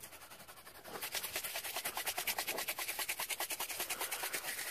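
Tannerite binary-target powder rattling as it is shaken hard in plastic jars, a rapid even rattle of about nine strokes a second that starts about a second in. The two components are being mixed before the target is shot.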